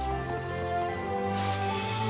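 Soft background score with held tones, and a bright shimmering swell coming in about a second and a half in.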